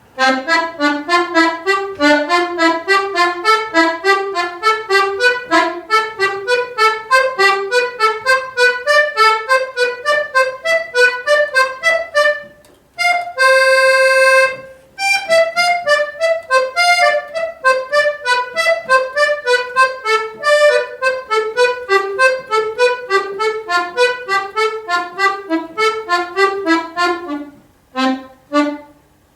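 Accordion playing an exercise in short, detached staccato notes. The notes climb in pitch for about twelve seconds to one long held note, then come back down, with a brief break near the end.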